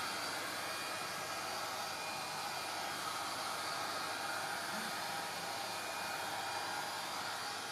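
A steady, even hiss like a small fan or blower running, unchanging throughout.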